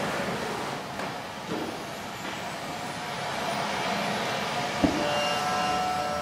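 Street traffic with a heavy vehicle going by: a steady rumble and hiss, a few light clicks, and a sharp click about five seconds in. Near the end a faint steady whine joins it.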